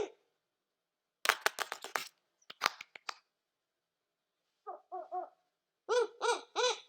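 Home-made vocal sound effects for a cartoon: a quick run of sharp clicks, a few more clicks, then three short pitched calls and three louder calls that each rise and fall in pitch, like animal cries.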